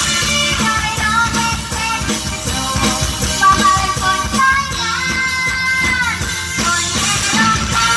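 Live Isan toei song: a singer's melody over a band with a steady dance beat, amplified through the stage sound system. There is a long held note about five seconds in.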